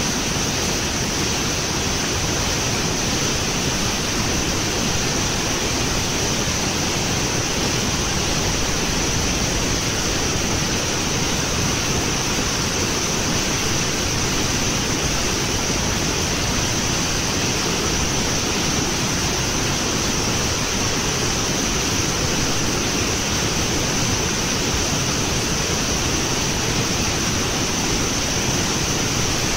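Floodwater pouring over a concrete dam spillway and churning through the pool below: a steady, unbroken rushing.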